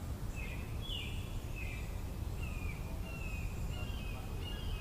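Birds chirping in short, repeated notes, several falling in pitch, over a steady low background rumble.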